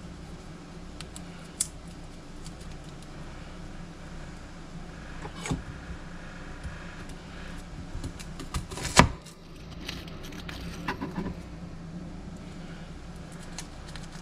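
Garlic cloves being peeled by hand and cut with a knife on a plastic cutting board: scattered small clicks and taps, with one sharp knock about nine seconds in, over a steady low hum.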